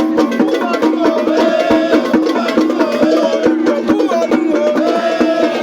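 Music with a quick, dense percussion pattern of sharp knocks under a sustained melody line.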